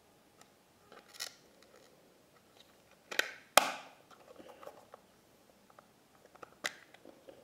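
Small hard-plastic Polly Pocket toy being handled: a few sharp clicks and snaps, the loudest two close together about three seconds in and another near the end, with light tapping between.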